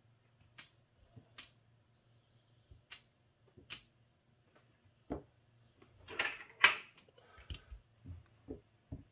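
Casino chips clicking as they are set down and stacked on a felt craps layout: a few separate sharp clicks, then a louder clatter of chips about six seconds in, and a few soft knocks near the end. A faint steady low hum lies underneath.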